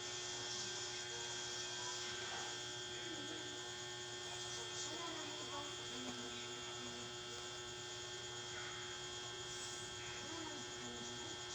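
Steady electrical hum, unchanging throughout, over a soft background hiss.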